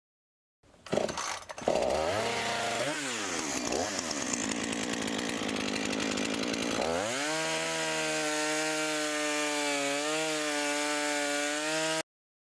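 A chainsaw starts up, revs with swinging pitch, and runs hard through a dense stretch that sounds like cutting into wood. About seven seconds in, it drops to a steadier, lower running speed, then cuts off abruptly near the end.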